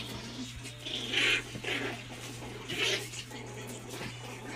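Puppies play-fighting, with three short squeaky cries about one, one and a half and three seconds in, the first the loudest, over a steady low hum.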